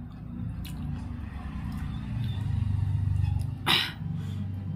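A low background rumble that swells to its loudest about three seconds in, under soft sounds of a hand mixing rice on a plate, with one short sharp noise near the end.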